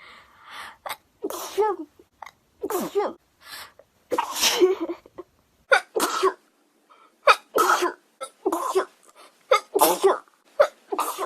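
A woman sneezing over and over in an uncontrollable fit: a rapid string of sharp, voiced sneezes, roughly one a second.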